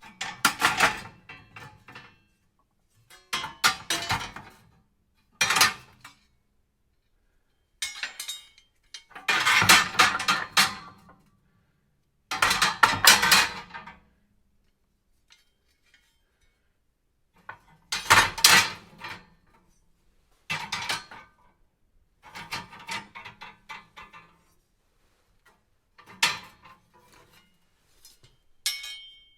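Metal fireplace tools clinking and clattering against each other and their stand, handled in about a dozen separate bouts of rattling with silent pauses between.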